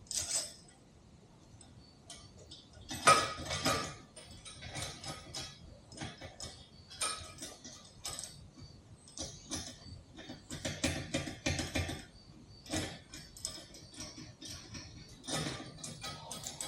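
Small metal parts clinking and knocking irregularly as an axle bolt, spacers and a rear wheel are fitted into a swing arm, with the loudest clank about three seconds in.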